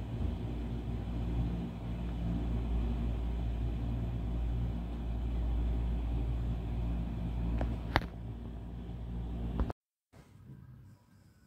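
Typhoon wind rumbling steadily against a high-rise window, gusting up and down, with one sharp click about eight seconds in. The rumble cuts off suddenly near the end, leaving only faint room tone.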